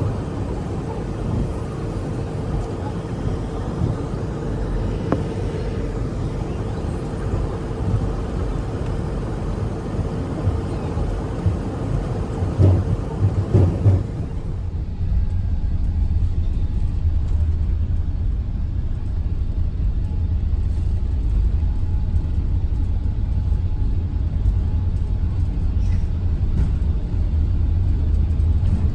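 Airliner cabin noise heard from a window seat: a steady engine and air-system hum with a faint held tone and a few knocks while taxiing, then about halfway through a deeper, louder low rumble as the plane rolls down the runway.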